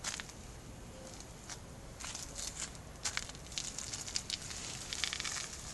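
Footsteps on a wet path in light rain, with rain pattering and crackling on an umbrella: irregular crisp scuffs and crackles over a low steady rumble.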